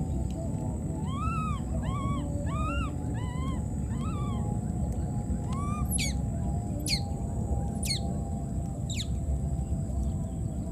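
Baby monkey crying: a run of about six short calls that rise and fall in pitch, then five sharp squeals that fall steeply in pitch, about a second apart, over a steady low background noise.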